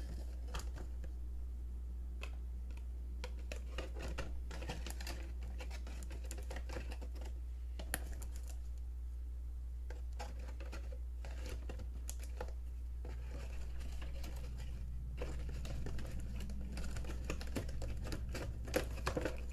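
Irregular plastic clicks, taps and rustles of a Rubik's 4x4 cube being packed back into its box, over a steady low hum.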